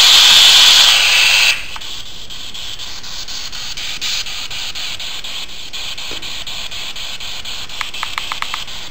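Spirit box (ghost box radio scanner) hissing with static as it sweeps through radio frequencies, with evenly spaced faint clicks at each step. The hiss is loud at first, drops sharply about a second and a half in, and a brief run of short beeps comes near the end.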